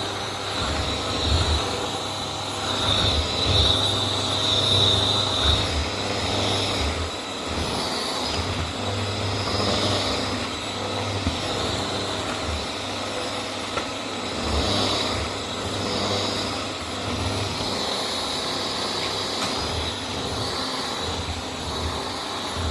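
Vax Air Steerable Max upright vacuum cleaner running, a steady motor whine with a high tone, its loudness swelling and easing every couple of seconds as it is worked.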